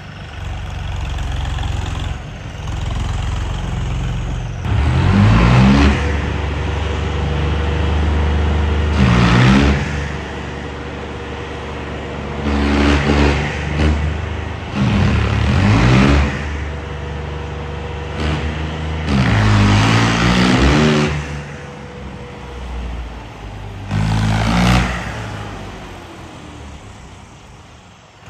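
Indo Farm tractor's diesel engine idling and being revved hard about six times, the pitch climbing and dropping back with each blip.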